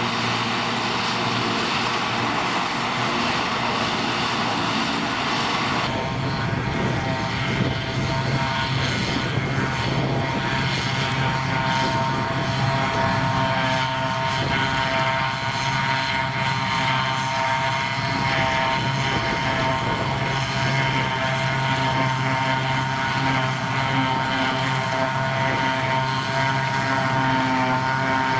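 Silage harvesting machinery running steadily: first a tractor working a trailed forage harvester, with a thin high whine over the engine, then, from about six seconds in, a John Deere self-propelled forage harvester chopping grass, its engine and chopping gear giving a steady low hum with several held mid-pitched tones.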